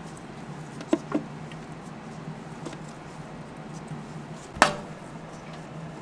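Light handling knocks from stainless steel trays, over a steady low hum. There are two soft knocks about a second in and one sharper knock with a short ring past the middle.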